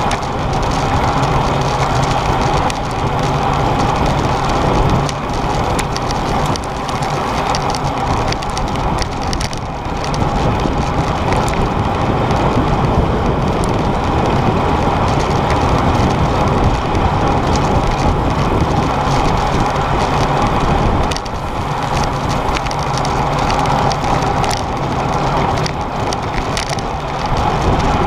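Wind rush and road rattle picked up by an action camera mounted on a racing bicycle riding in a bunch: a steady loud rush with constant crackling from vibration.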